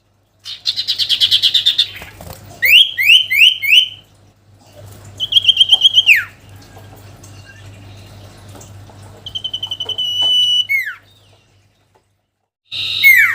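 Small songbird, the sirtu, singing loud phrases meant to provoke a rival. It opens with a fast trill of about eight notes a second, then four quick swooping notes. Two long, high, steady whistles follow, each dropping sharply in pitch at its end, and a new phrase starts near the end.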